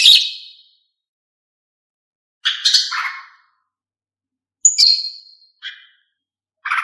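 Female green leafbird (cucak ijo) calling: a few short, harsh chattering calls with gaps of silence between them. One sharp call about two-thirds of the way in runs into a briefly held high whistle.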